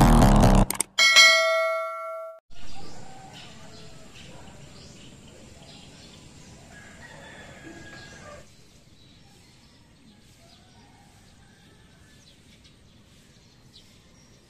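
Electronic intro music cuts off, then a single notification-bell ding rings and fades over about a second. Faint outdoor ambience follows and grows quieter about halfway through.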